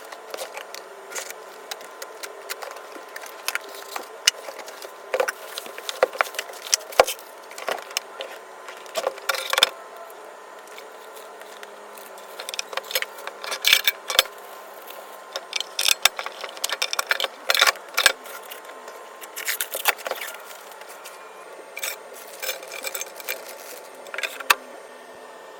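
Air fryer and its packaging being handled during unboxing: irregular clicks, knocks, rattles and rubbing.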